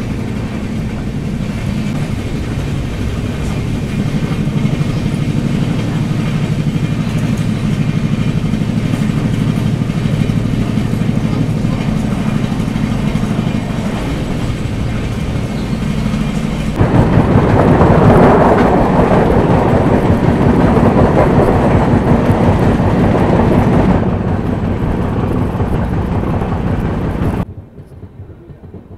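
Express train running on the track: a steady low rumble with a faint hum. About seventeen seconds in it turns suddenly louder and rougher, eases a few seconds later, and drops away abruptly near the end.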